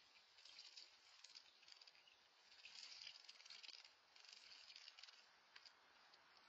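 Faint trickling and splashing of water running over the stones of a small garden stream, rising and falling in uneven surges.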